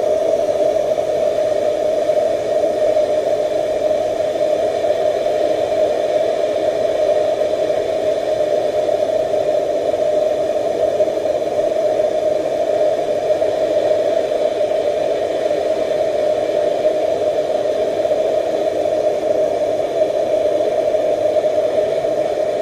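Handheld gas blowtorch burning with a steady, unbroken jet-flame hiss.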